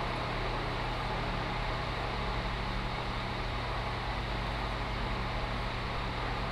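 Steady mechanical hum with an even hiss, unchanging throughout, with no distinct knocks or scrapes standing out.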